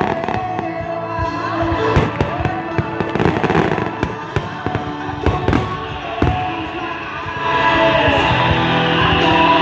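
Fireworks bursting in quick, irregular bangs and crackle over loud rock music. The music swells louder about three-quarters of the way through.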